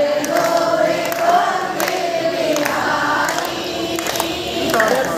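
A crowd of devotees singing a devotional chant together, in long held notes that rise and fall, with scattered hand claps.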